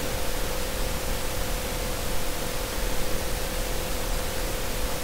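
Steady hiss from the recording microphone, with a faint steady hum-like tone; no other sound.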